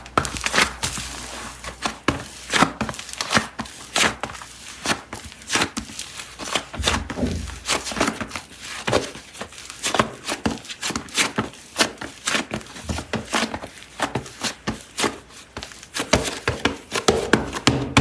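Irregular sharp taps and clicks, several a second, of air-dry super clay and its packaging being handled and opened up close.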